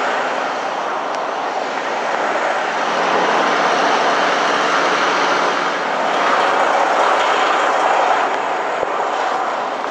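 Semi-truck diesel engines running, a steady loud noise with no break.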